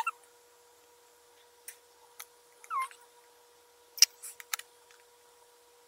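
Light plastic clicks and taps from a plastic candy-kit tray being handled while it is filled with water. One short rising squeak comes about halfway through, and a faint steady hum sits underneath.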